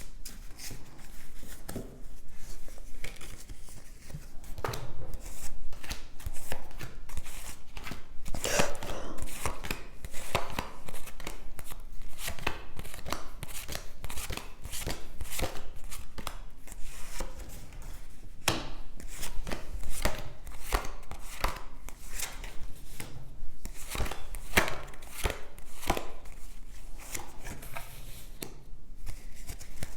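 A deck of cards being shuffled and handled by hand: a continuous, irregular run of quick clicks and soft slaps of card on card.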